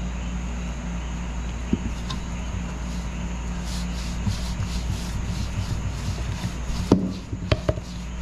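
Hands mixing and rubbing doubles dough (flour, yeast, saffron powder and water) in a bowl: rhythmic rubbing strokes, about three a second from about halfway in, over a steady low hum. A few sharp knocks near the end.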